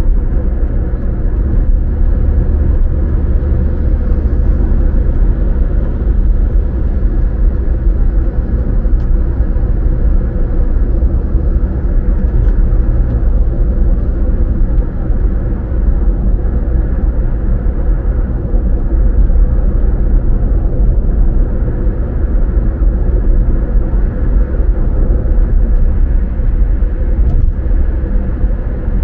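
Car driving at a steady speed: an even, low rumble of engine and road noise that holds without change.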